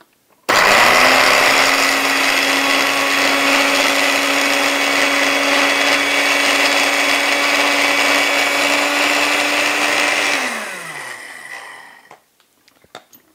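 Countertop blender with a glass jar grinding dry oatmeal into a fine powder: the motor starts abruptly about half a second in and runs at a steady pitch for about ten seconds, then is switched off and winds down with a falling pitch. A few faint clicks follow near the end.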